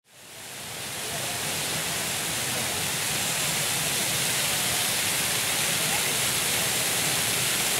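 Public fountain jets splashing into their basin, a steady dense rush of falling water that fades in over the first second.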